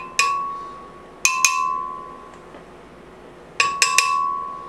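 A metal spoon tapping against a glass blender jar while knocking ginger off it: six sharp clinks in three groups (one, then two, then three), each leaving a clear ringing tone that fades.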